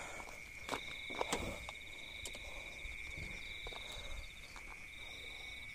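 Night crickets chirping in a steady, fast trill, with a few sharp clicks in the first couple of seconds.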